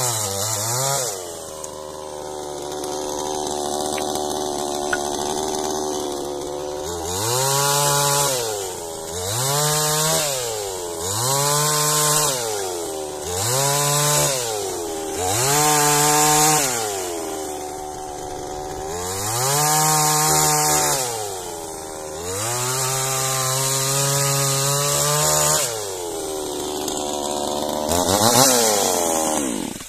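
New Dnipro-M two-stroke chainsaw being run in, revving up into short cuts through thin logs and dropping back between them about every two seconds, the chain rasping through the wood at each rev. It cuts off suddenly at the end.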